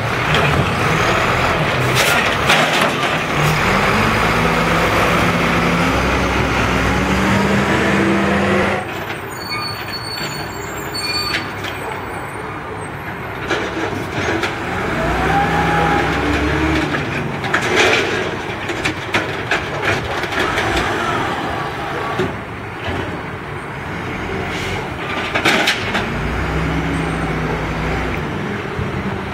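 Automated side-loader garbage truck at work: its diesel engine revs up and holds again and again, with air brakes hissing and sharp knocks now and then. The engine is loudest in the first third, then quieter as the truck works farther off.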